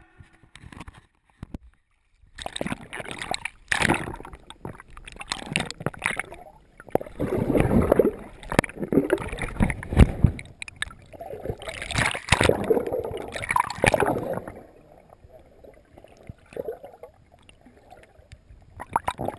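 Water sloshing and gurgling in irregular surges, heard through a camera held just under the surface beside a boat. It is quieter over the last few seconds.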